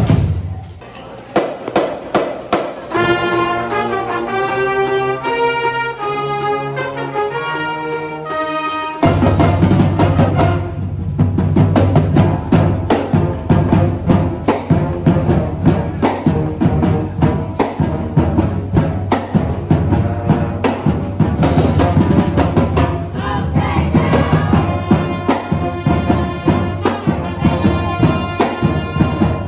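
High school marching band playing live. A brass melody on trumpets comes first without drums, then about nine seconds in the full band enters with sousaphone bass and a steady beat on bass drums and percussion.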